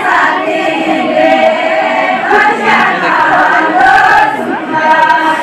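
A large group of voices singing a Pahari folk song together, a chant-like melody sung in unison without instruments standing out.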